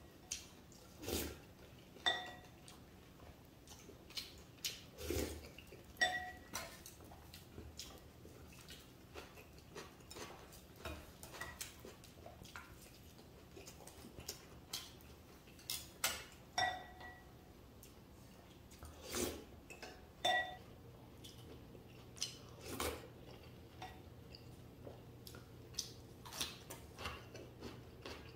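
Tableware clinking during a meal: a wooden spoon and chopsticks tapping against a glass bowl and plates, a few of the strikes ringing briefly, with softer chewing sounds in between.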